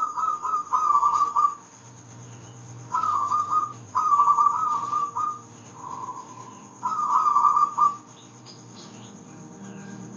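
Zebra dove (perkutut) cooing its rhythmic song: a run of short, rolling, whistle-like phrases, each about a second long, repeated with brief pauses, one of them softer than the rest.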